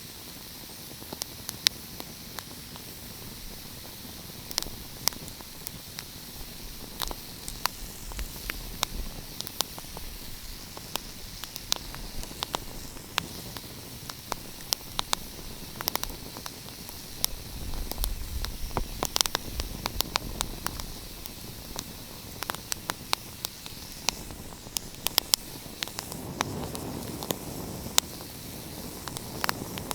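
Wood fire crackling: irregular sharp pops and snaps over a steady hiss, with a low rumble of the flames now and then.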